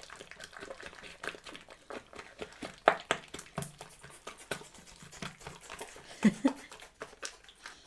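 Slime being mixed and kneaded by hand: irregular sticky squishing, clicking and popping. The two loudest squelches come about three seconds in and just after six seconds.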